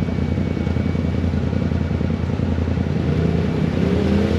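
Side-by-side UTV engine idling steadily. A second, higher motor tone rises in pitch and grows louder near the end.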